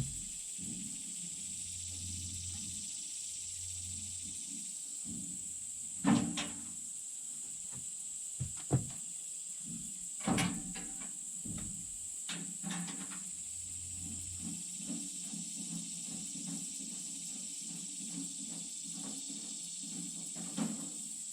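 A few sharp clunks and knocks of wood and metal being handled at a portable sawmill, over a steady high-pitched hiss and low hum.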